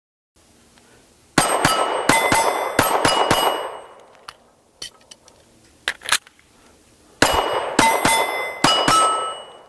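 Walther PPS M1 9mm pistol fired in two quick strings of about five or six shots, a few seconds apart, with steel targets ringing after the hits. A few faint clicks come between the strings.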